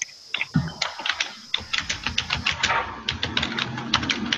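Typing on a computer keyboard heard over a video call: rapid, irregular keystroke clicks, several a second, getting going about a second in.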